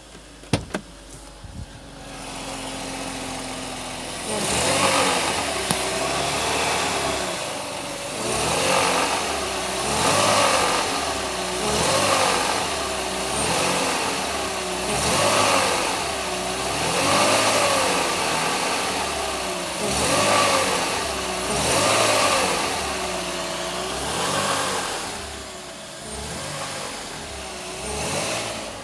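BMW E46 320i's straight-six engine idling, then from about four seconds in revved up and let fall again and again, about once every two seconds.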